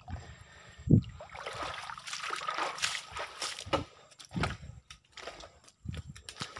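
Footsteps squelching and sloshing through wet mud and shallow creek water, uneven and irregular, with a heavy low thump about a second in.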